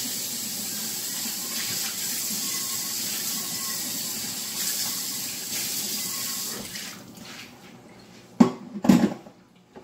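Water running steadily from a tap, shut off about seven seconds in, followed by two loud knocks close together near the end.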